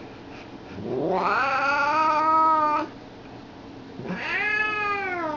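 Domestic cat yowling in protest at having its matted fur clipped: two long drawn-out yowls, the first rising and then held for about two seconds, the second arching up and falling away.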